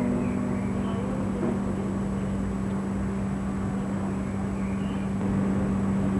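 A steady low hum holds one pitch over a background of noise.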